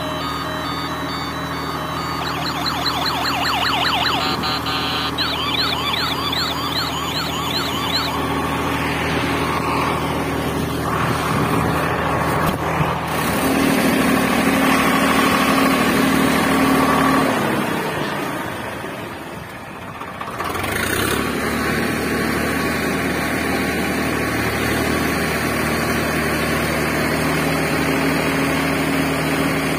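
Electronic toy-vehicle sound effects: a steady synthetic engine-like drone, with a warbling siren from about two seconds in that runs for several seconds. The sound drops away briefly about two-thirds through, then the drone resumes.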